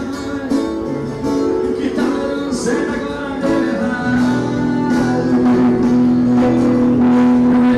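Live band music with guitar and singing, played loud over the street-carnival sound system.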